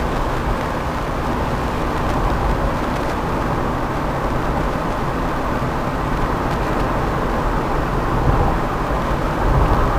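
Steady engine and road noise of a 1994 Fiat Elba driving at town speed, heard from inside the cabin.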